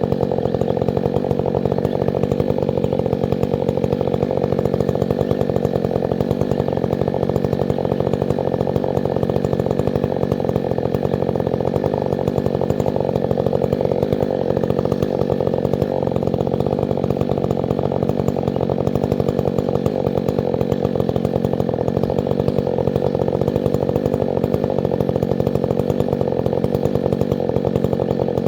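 Two-stroke chainsaw engine running steadily at one constant speed, with no revving up or down.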